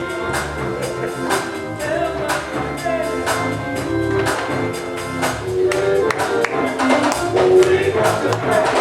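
Gospel music in church: singing over instruments with a steady, evenly spaced beat.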